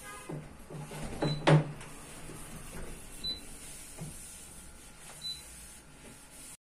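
Hotpoint-Ariston refrigerator's door-open alarm giving a short high beep about every two seconds, sounding because the fridge door is standing open. A knock about a second and a half in is the loudest sound.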